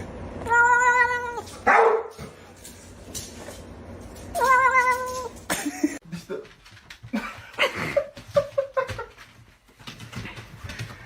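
A cat meowing: two long, wavering meows of about a second each, one near the start and one about four and a half seconds in, followed by softer, shorter sounds.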